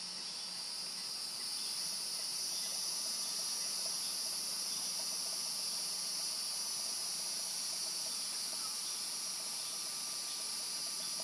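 Steady, high-pitched chorus of insects, swelling slightly over the first couple of seconds and then holding even.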